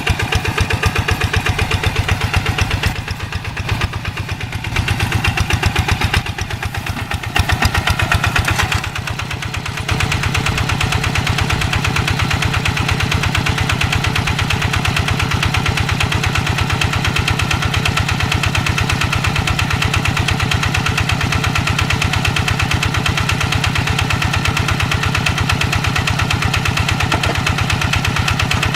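Single-cylinder diesel engine of a two-wheel hand tractor running with a fast, even chug. The loudness rises and falls several times over the first ten seconds, then settles into a steady run.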